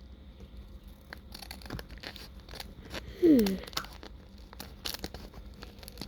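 Paper envelopes being handled and torn open: scattered rustling, crinkling and small tearing sounds. A little past halfway comes one brief, loud tone that falls in pitch.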